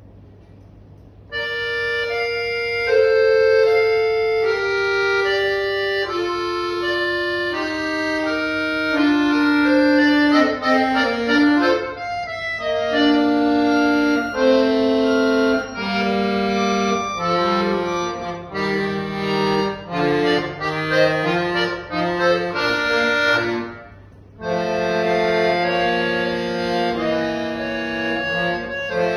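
Chromatic button accordion played solo: held chords and a moving melody begin about a second in, with a brief break about 24 seconds in before the playing resumes.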